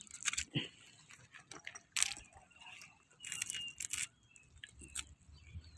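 A scoop net scraping mussels and oysters off a shell-encrusted pier piling. It makes several short bursts of shell crunching and scraping on shell, with a faint low hum underneath.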